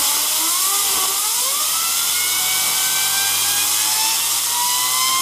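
Compressed air from a blow gun hissing into a ball bearing and spinning it up, so the bearing whines with a pitch that keeps rising, dipping briefly about a second in. The air is blowing loosened debris and coke out of the bearing as it is cleaned.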